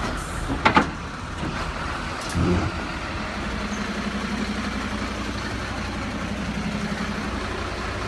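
Recorded diesel truck engine idling, played by the Bruder toy tow truck's light-and-sound module: a steady, evenly pulsing hum from about three seconds in. Before it, sharp plastic clicks just under a second in, as the toy's stabilizer leg is lowered, and a low thump about two and a half seconds in.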